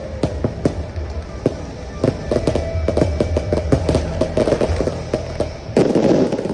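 Fireworks bursting in quick succession over the show's music, the bangs coming faster from about two seconds in and ending in a dense, loud barrage near the end.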